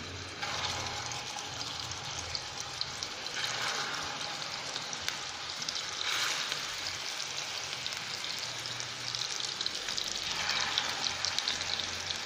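Hot oil sizzling and crackling in a frying pan as rolled chicken-filling pieces are laid in one at a time, the sizzle swelling each time a new piece goes in, about four times.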